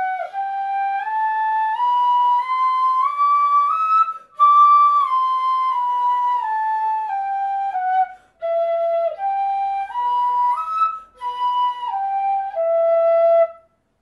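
Pífano (Brazilian bamboo fife) in G playing an E minor scale exercise: clear single notes stepping up and back down, then leaping up and down through the arpeggio. There are short breath gaps about four and eight seconds in, and it ends on a held low E near the end.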